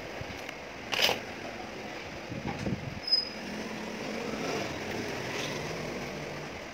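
Eating noodle soup: a short slurp about a second in, a light clink of a fork on the bowl around three seconds, and chewing, over a steady background hum.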